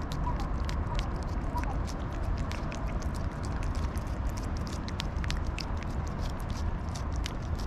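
A calico cat licking a paste treat from a squeeze pouch close to the microphone: quick, irregular wet clicks of the tongue, several a second, over a steady low rumble.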